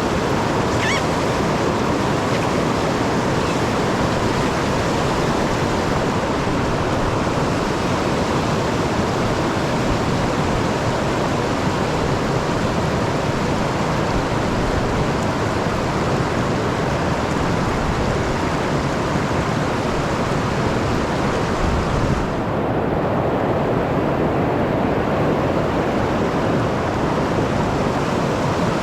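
Steady, loud rush of a river's flowing water. About 22 seconds in there is a brief low knock, and the hiss sounds duller for a few seconds after it.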